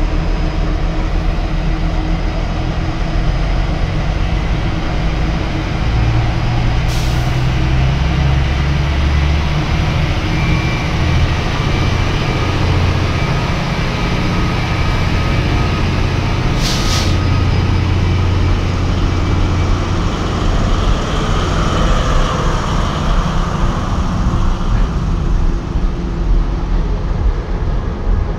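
Metro-North diesel work locomotives (a BL14CG, a BL20GH and a GP35R) running as they roll slowly past, a steady low engine rumble. Two short sharp hisses of air cut through, about a quarter of the way in and again just past the middle.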